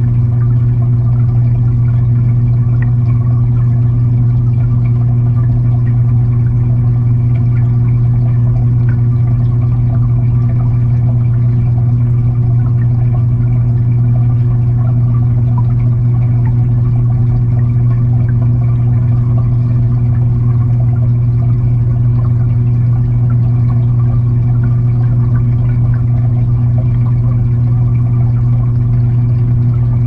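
Aquarium filter running, heard underwater from inside the tank: a loud, steady low hum with a faint wash of moving water over it.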